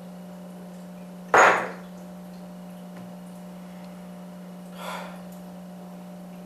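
A single sharp knock on a wooden table about a second in, fading quickly, and a softer brief noise a few seconds later, over a steady low room hum.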